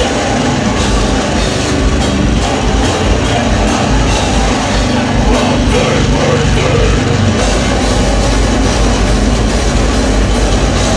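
Hardcore punk band playing live: guitars, bass and a drum kit, loud and dense throughout, with the low end settling into a steady held note about two-thirds of the way through.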